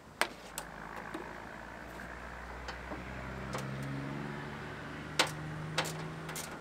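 Jumper cable clamps clicking and clacking as they are unclipped, with sharp clicks scattered through and the loudest about five seconds in, over the steady low hum of an engine running.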